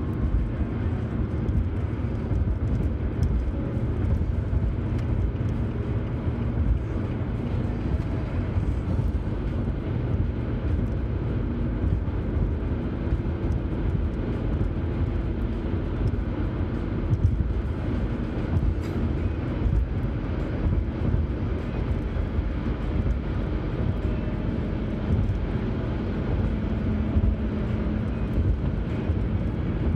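Steady road noise inside a car cruising at highway speed: a low, even rumble of tyres and engine heard from the cabin.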